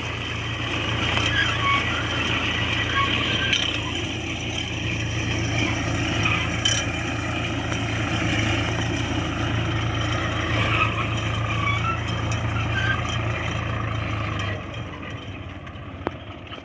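Swaraj 744 XM tractor's three-cylinder diesel engine running steadily while pulling a ratoon manager cutter through sugarcane stubble rows. The sound drops noticeably quieter about three quarters of the way through.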